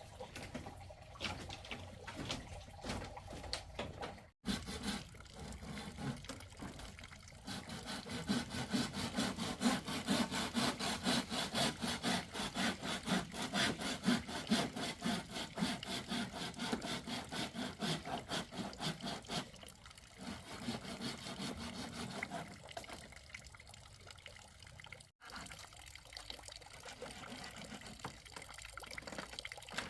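Quick, regular rasping strokes, about four a second, in the middle of the clip over a softer steady hiss; the sound cuts out abruptly twice.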